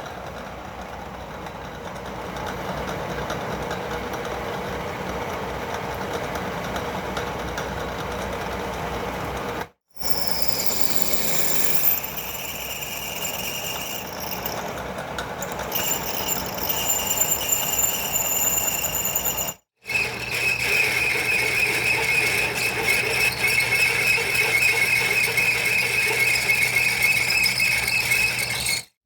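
Drill and end mill cutting a hole in a 304 stainless steel block on a lathe, the machine running with a high, steady cutting squeal that is strongest in the last third. The sound breaks off abruptly twice.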